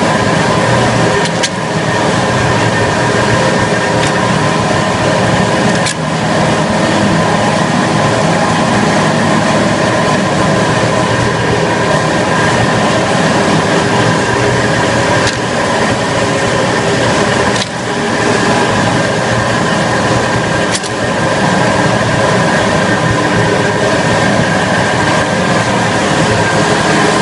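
Biro AFMG-48 meat mixer-grinder running under load, its motor and auger forcing meat through the grinder plate: a loud steady machine hum with several held tones, broken by a few brief knocks.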